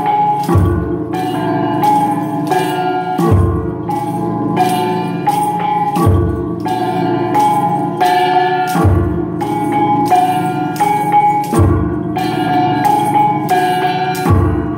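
Mường gong ensemble (cồng chiêng), a row of hand-held gongs beaten in a repeating cycle. Overlapping ringing tones carry through, with a deep low stroke coming back about every three seconds.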